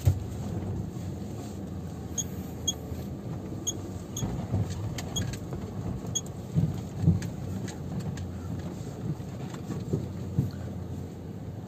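Cabin of a 2010 Toyota Yaris rolling slowly over paving blocks: a steady low road rumble with short creaking ticks from the door and body, scattered mostly through the first half, and a few dull knocks around the middle. The creaking comes from dried-out door rubber seals that need lubricating.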